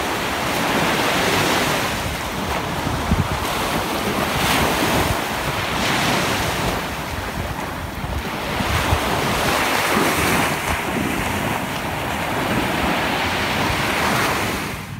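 Small waves breaking and washing up a sandy beach, the rush of surf rising and falling every few seconds, with wind buffeting the microphone.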